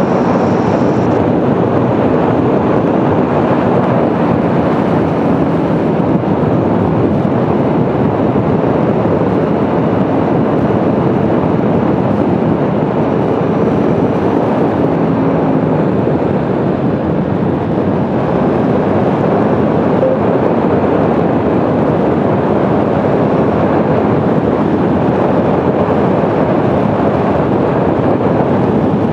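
Aprilia Tuono V4 1100's V4 engine running steadily on the move, under a heavy steady rush of wind noise on the microphone.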